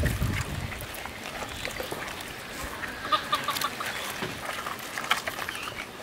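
Hands mixing a heap of raw fish heads with turmeric in a large aluminium bowl: scattered wet squelches and light knocks of heads against each other and the metal.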